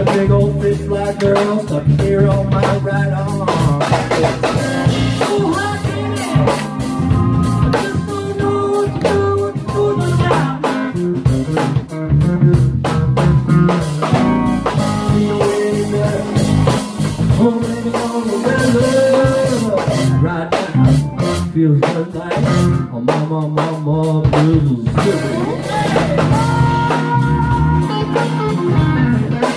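Live electric blues band: electric guitar playing notes that bend and waver, over a drum kit.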